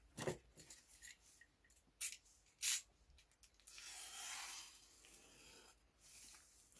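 Hands handling small objects: a few sharp clicks and taps, then about two seconds of scratchy rubbing noise around the middle.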